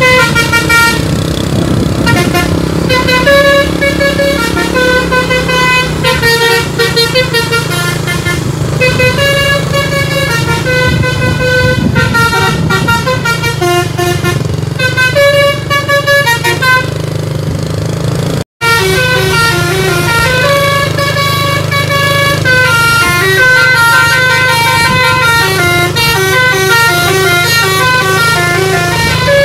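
A bus's telolet (basuri) multi-tone air horn plays a long tune of quick, stepping notes over the steady low hum of the bus's running engine. The sound breaks off for an instant about 18 seconds in, then the tune carries on.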